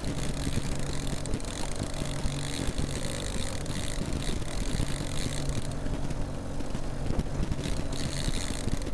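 Boat motor running steadily at low trolling speed, with a constant low hum, while wind buffets the microphone.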